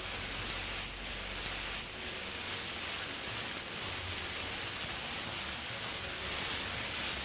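A steady rain-like hiss that holds level, with a faint low rumble beneath it.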